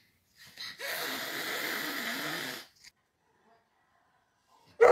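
Domestic cat hissing in one long breath of about two seconds, starting about a second in, with a low wavering growl beneath it. A short, sudden loud sound comes at the very end.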